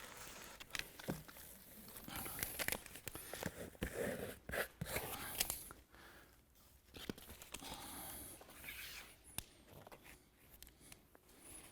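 Faint, irregular tearing and crinkling of adhesive sealing tape being pulled off its roll and handled with its release liner, with a few sharp clicks.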